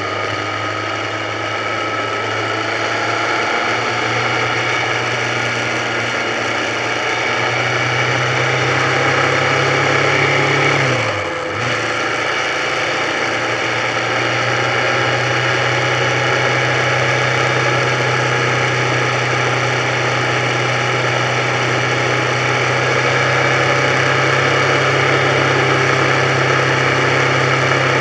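Motorcycle engine running steadily while riding along the road, with a brief dip in the engine sound about eleven seconds in.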